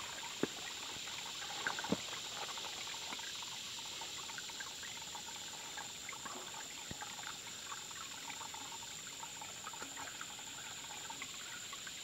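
Small rocky creek trickling steadily, with a few faint clicks and knocks of a metal water bottle and cloth being handled.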